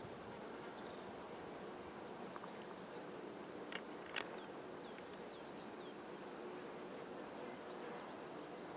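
Faint birdsong: many short, high chirping notes scattered throughout, over a faint low hum, with two small clicks about four seconds in.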